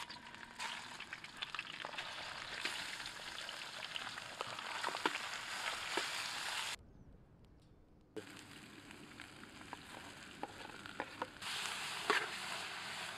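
Pieces of farm duck sizzling in hot oil in a wide steel pan over a wood fire, stirred with a spatula, with scattered sharp clicks through the hiss. The sizzling stops for about a second and a half in the middle, then resumes.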